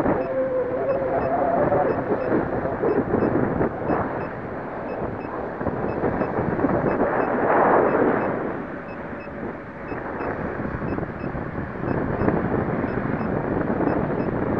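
Wind buffeting the microphone in gusts, with the faint wavering whine of a small RC plane's electric motor and propeller in flight.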